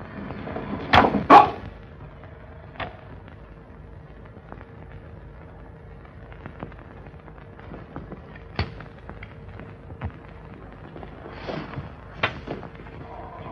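Electroshock apparatus being switched on: two loud crackling bursts close together about a second in, followed by a faint steady hum with scattered sharp clicks.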